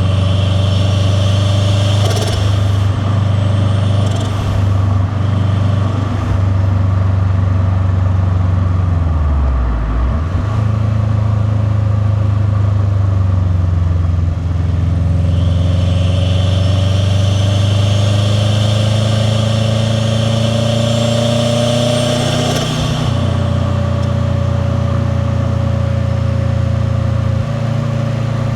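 Turbocharged Subaru WRX STi boxer flat-four with a catless downpipe and titanium catback exhaust, driving through the gears. The revs drop around a third of the way in, then climb steadily for several seconds with a rising turbo hiss before a sudden break as the throttle is lifted, after which the engine pitch eases down.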